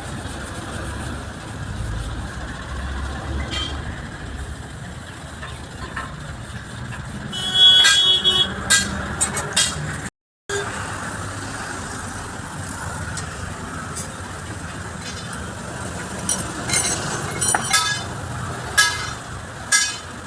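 Steady low rumble of road vehicles, with a horn blast about eight seconds in and sharp metallic clinks in the second half. The sound cuts out completely for a moment about ten seconds in.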